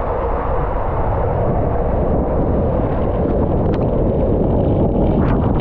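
Loud, steady rush of water with wind buffeting the microphone.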